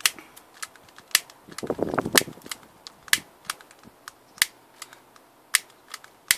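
A handheld lighter clicked over and over, about two or three sharp clicks a second, failing to catch. A short rushing noise comes about two seconds in.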